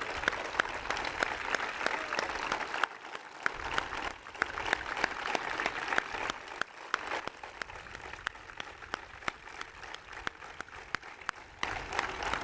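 Crowd applauding, a dense patter of many hands clapping; it softens for a while and picks up again near the end.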